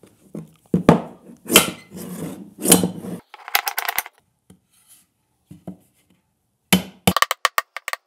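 Claw hammer driving nails through one wooden board into another: three heavy blows in the first three seconds, then quick runs of lighter taps, one around the middle and a longer one of about eight taps near the end.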